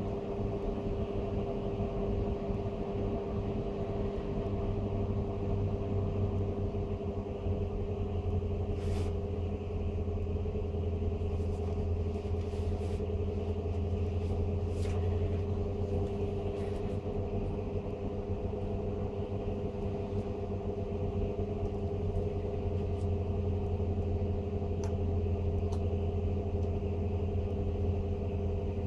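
Blower door fan running steadily, drawing air out of the house to hold it under negative pressure during the multi-point airtightness test. It is a constant motor-and-fan hum with a low drone and a steady mid tone above it.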